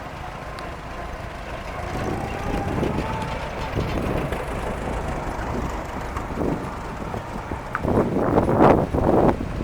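Farm tractor engine running steadily, with wind buffeting the microphone; the gusts grow loud near the end.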